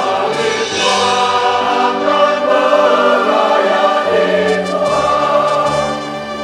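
Mixed church choir of men's and women's voices singing an Indonesian hymn in held chords.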